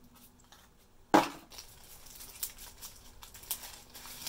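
A small cardboard box being opened by hand, with one sharp snap about a second in, then crinkling and rustling as a motion sensor is pulled out of its white wrapping.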